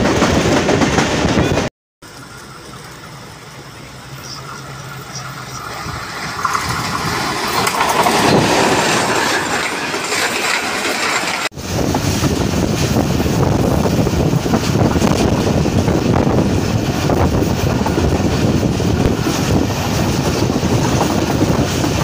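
Train running on the rails, in separate clips: after a brief dropout, a train builds up steadily over several seconds with a whine that falls in pitch. After a cut, a steady loud rumble and clatter of a train running.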